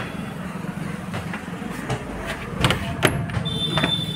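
Keys and a door latch clicking and knocking as a wooden door is unlocked and opened, the loudest knock about three seconds in. A high steady squeal sets in about three and a half seconds in and holds.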